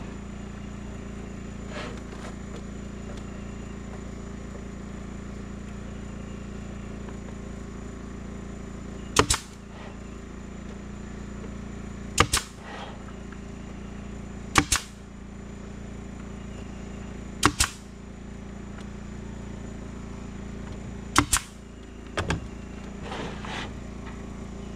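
Nail gun firing into pine boards: about seven sharp shots a few seconds apart, two of them in quick succession near the end, over a steady low hum.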